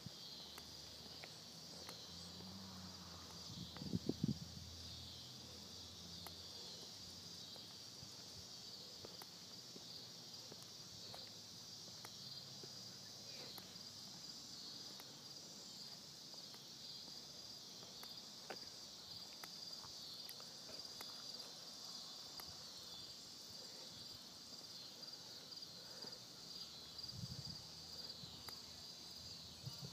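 Steady, high-pitched insect chorus. A brief low rumble comes about four seconds in, and another near the end.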